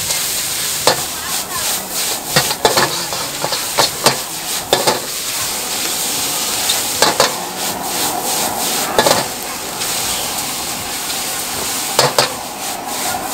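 Noodles sizzling in a hot wok while a metal ladle stirs and tosses them, with sharp clanks and scrapes of the ladle against the wok. The clanks come about once a second in the first few seconds, then more sparsely.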